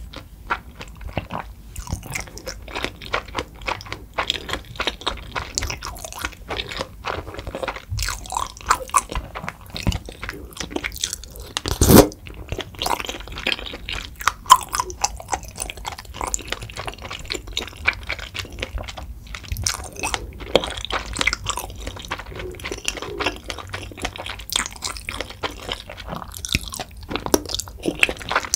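Close-miked eating of soupy tteokbokki: wet chewing and mouth smacks, broth sipped from a spoon, and crunchy bites, with utensils clicking. One loud short knock about halfway through.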